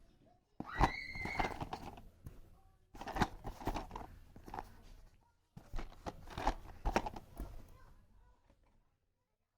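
Packaging being handled and opened: crinkling and tearing, with a short squeak about a second in. It comes in three stretches that each start suddenly and fade out.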